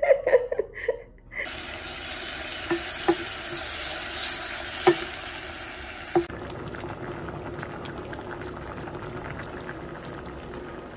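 Sliced mushrooms sizzling in a small saucepan, stirred with a wooden spatula that knocks against the pan four times. About six seconds in, this gives way to the steadier sizzle and bubbling of a stew simmering in a pot.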